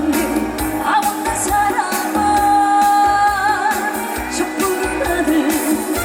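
Live trot song: a woman singing over a band backing track, holding one long note with vibrato a little past the middle.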